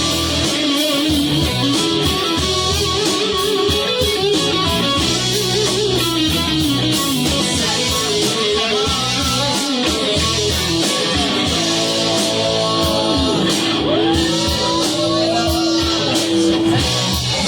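Live rock band playing an instrumental break: an electric guitar lead with bending notes and a long held note near the end, over bass and drums.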